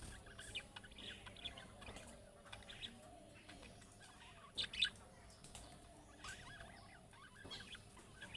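Budgerigars chattering with quick, high chirps and warbles, the loudest two sharp calls about halfway through.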